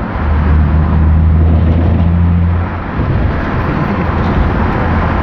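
BMW E36 M3 straight-six with a newly installed exhaust, heard from inside the cabin while driving. A steady low exhaust drone holds for about two and a half seconds, then eases off abruptly, leaving engine and road noise running underneath.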